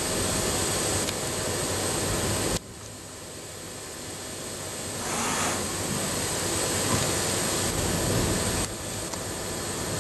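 Steady rumbling machine-shop background noise with no clear single source; it drops abruptly about two and a half seconds in, builds back up, and dips again near the end.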